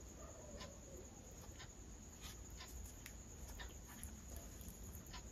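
Faint, scattered small clicks and crackles of fingers tearing a fried luchi and picking up food.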